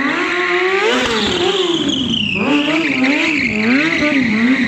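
Kawasaki sport motorcycle engine revving up and down over and over while the bike is ridden hard through a tight stunt turn, with a high tyre squeal running above it.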